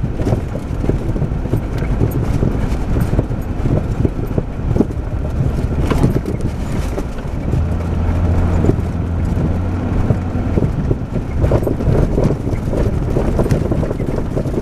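A Jeep Grand Cherokee's 5.9-litre V8 running and its tyres rolling over a rough dirt track, heard from inside the cab, with scattered knocks and rattles as it bumps along. About halfway through, a steady low engine drone comes up for a couple of seconds.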